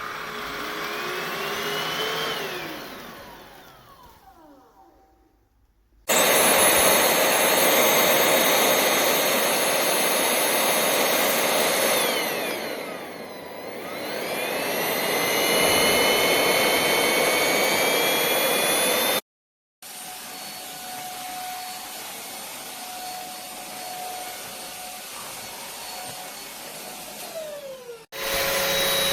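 Cordless stick vacuum running with a steady whirring whine. It is heard in several stretches of different loudness that cut off abruptly. About halfway through, the motor's pitch sinks and then climbs back up.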